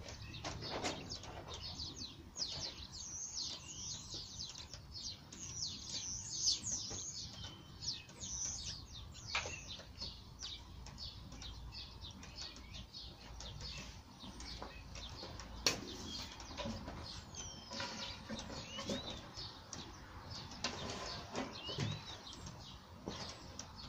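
Small birds chirping and twittering in bursts, with a few sharp knocks from 18mm plywood panels being handled and stood against each other.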